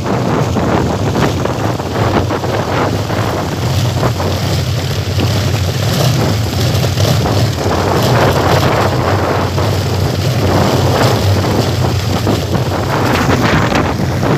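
Kolecer, Sundanese wooden wind propellers on tall bamboo poles, spinning in strong wind and giving a steady low whirring drone that swells and fades with the gusts. Wind buffets the microphone throughout.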